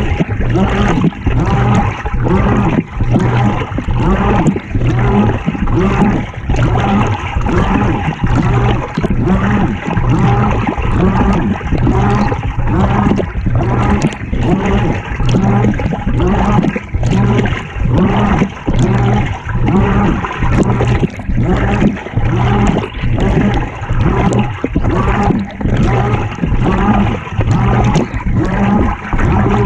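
Water sloshing and churning inside a GE GTW220ACKWW top-loading washing machine tub during the wash, heard from inside the tub. It surges and eases about once a second, with a low hum under it.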